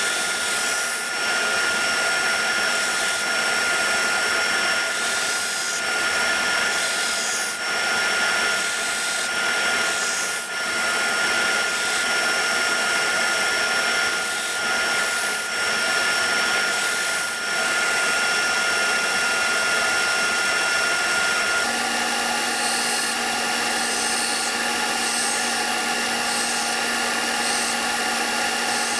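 A power tool running continuously with a steady whine over a noisy hiss; about three-quarters of the way through, its tone changes to a lower, different set of pitches.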